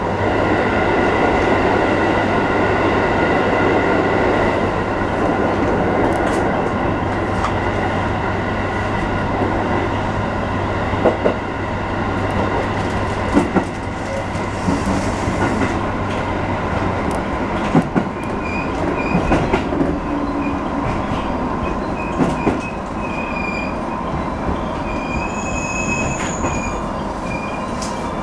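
Electric commuter train running, heard from the driver's cab: steady motor and wheel noise, with several sharp clacks as the wheels cross rail joints and points. From about twenty seconds in, high thin wheel squeal comes and goes as the train rounds a curve into a station.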